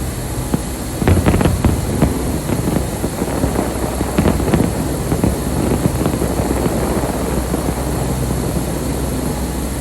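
Fireworks display: repeated bursts and dense crackling over a steady low rumble, with stronger bursts about a second in and again around four seconds in.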